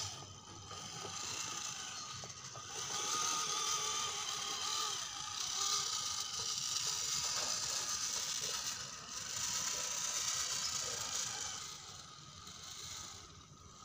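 Electric motor and geared drivetrain of a 1/10-scale RC crawler whining in surges with the throttle as it crawls over bricks, louder through the middle and easing off near the end.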